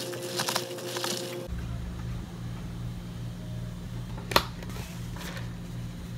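Ice rattling rapidly in a plastic cup as a drink is stirred with a straw, for about the first second and a half. After that a steady low hum, with one sharp click about four seconds in.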